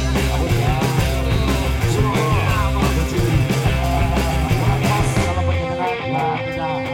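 Background rock music with drums, bass and guitar. About five seconds in the drums and bass drop away, leaving lighter guitar.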